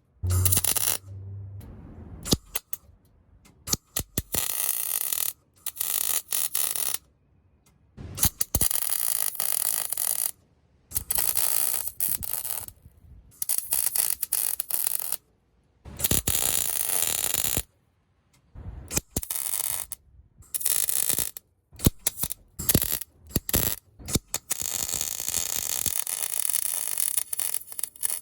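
Metal being welded in short bursts: a crackling, sizzling hiss that starts and stops abruptly every second or two as tack welds are laid on the steel skid-plate tabs.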